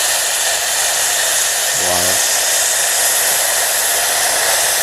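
Gas camp stove burner running with a loud, steady hiss while it heats a pot of snow to melt it for water.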